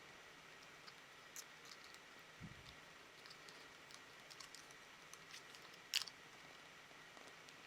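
Faint, scattered small clicks and taps of small parts being handled, with one sharper click about six seconds in and a soft thump before it.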